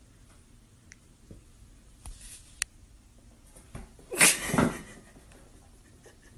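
Cat tumbling off the edge of a sofa: a short, loud burst of thumping and breathy noise about four seconds in as it falls and lands, after a faint stretch broken by one sharp click.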